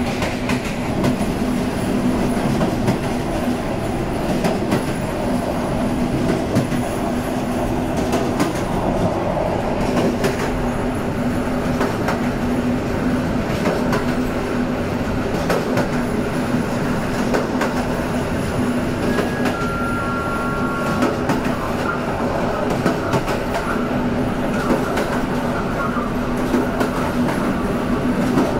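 Diesel locomotive hauling a passenger train at speed, heard from just behind it: a steady engine hum over the continuous rumble of wheels on track, with scattered clicks over rail joints. A faint, brief wheel squeal comes about two-thirds of the way through.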